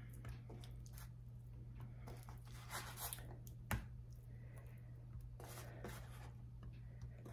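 Faint soft taps and rustles of raw beef stew meat chunks being set down by hand on an oiled metal sheet pan, with one sharper click near the middle.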